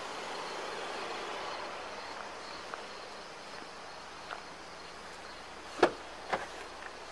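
Steady outdoor background noise with two sharp clicks about half a second apart, a little under six seconds in.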